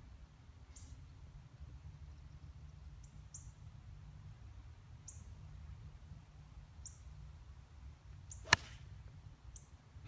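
One sharp crack of a golf club striking a trick golf ball off the tee, about eight and a half seconds in. Short high chirps repeat every couple of seconds over a low steady rumble.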